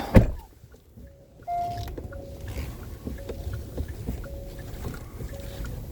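A heavy thump, then a short electronic beep that repeats about once a second over a low rumble, like a vehicle's warning chime.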